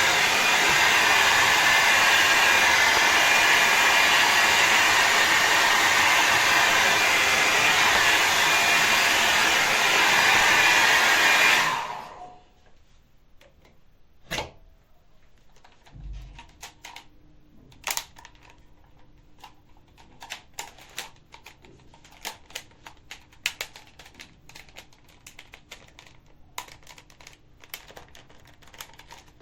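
Hair dryer blowing steadily, then switched off about twelve seconds in, the airflow dying away quickly. After it stops come scattered faint clicks and rustles of handling, a single soft thump, and a faint steady hum.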